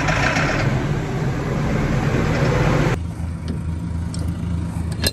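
Tractor diesel engine running just after a cold start in frost, heard from inside the cab. About three seconds in it gives way to a low, evenly pulsing idle, and a sharp click comes at the end.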